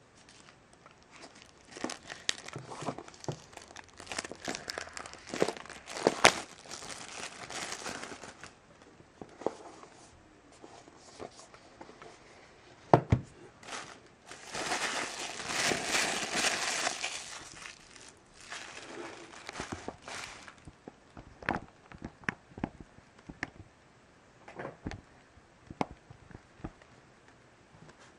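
Clear plastic shrink-wrap being torn and peeled off a cardboard box and crumpled, crinkling in bursts, with a longer stretch of crumpling about halfway through. Scattered light taps and clicks follow in the last third.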